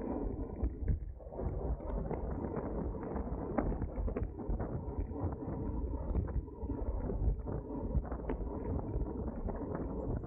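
Wind buffeting the microphone of a camera on a racing bicycle at speed, a steady low rumble with many small irregular clicks and rattles from the bike over the road.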